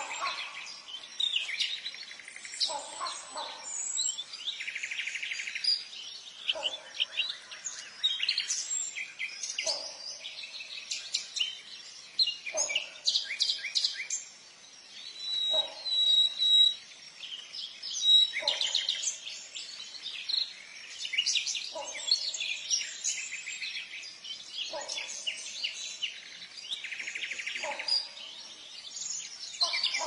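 A chorus of birds: many small birds chirping and twittering continuously, with a lower call repeating about every three seconds.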